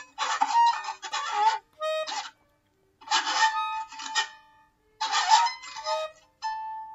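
Freely improvised experimental music: several bursts of dense, breathy, rasping sound mixed with short held tones, broken by brief silences.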